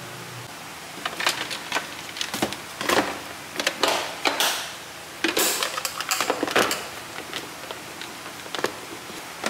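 A lunch box being packed: stainless steel food containers knocking and scraping into a plastic case for several seconds, followed by a few lighter clicks of the plastic lid clips being fastened.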